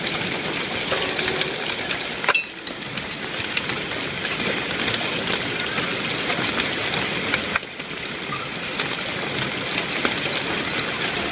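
Torrential rain mixed with dime- to quarter-sized hailstones: a steady, dense hiss of downpour with many sharp ticks of hail striking surfaces.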